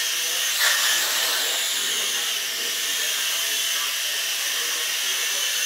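Syma X1 mini quadcopter in flight, its four small electric motors and propellers making a steady high-pitched whine with a light wavering in pitch as it is steered.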